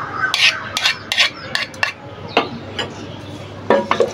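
Wooden spatula stirring raw rice in spiced liquid inside a rice cooker's inner pot, knocking and scraping against the pot in irregular clacks, closest together in the first two seconds and sparser after.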